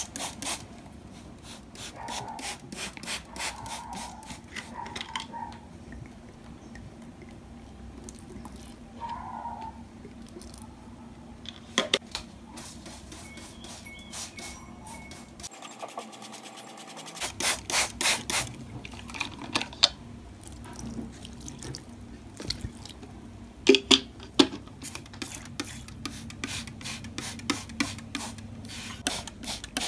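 Plastic trigger spray bottle misting water onto houseplant leaves, in runs of quick squirts with pauses between.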